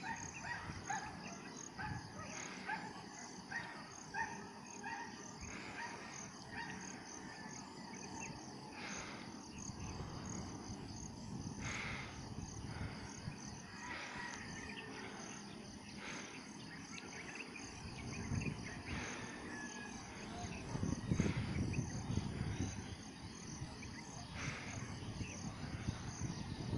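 Insects chirping in a rapid, even pulse, with scattered short chirps of other creatures through the first third. A low rumble swells about two-thirds of the way through.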